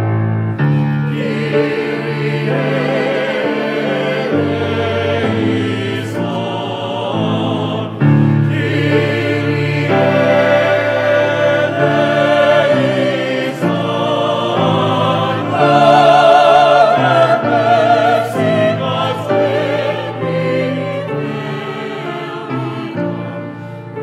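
Mixed choir of men's and women's voices singing together in harmony, with vibrato, coming in right at the start and growing loudest about two thirds of the way through.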